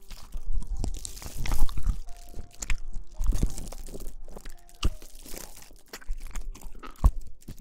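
Close-miked ASMR rustling: irregular crunchy crackling and scrunching against the microphone, with sharp clicks about five and seven seconds in.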